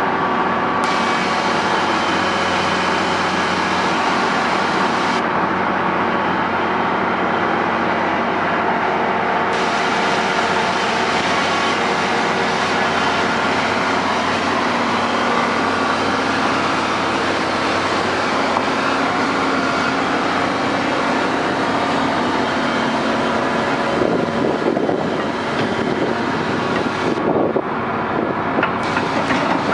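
Heavy diesel engines of tracked construction machines, an excavator and a crawler dozer, running steadily throughout. A rougher, noisier stretch comes in near the end.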